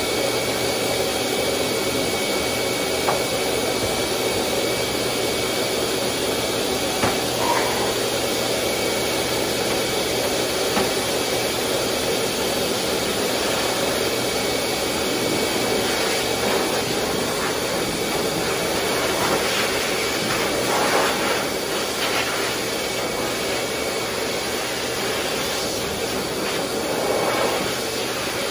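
High-velocity pet dryer blowing a steady blast of air through a wet dog's coat, a constant rushing noise with a faint steady whine from the blower motor.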